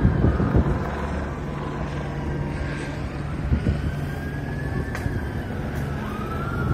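Police siren wailing in slow rising and falling glides, with a sharp upward sweep about six seconds in, over a steady low engine hum. Wind buffets the microphone at the start.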